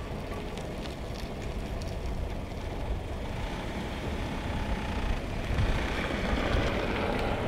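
Car driving slowly on a tarmac road: a steady low rumble of engine and tyres, growing louder about two-thirds of the way through.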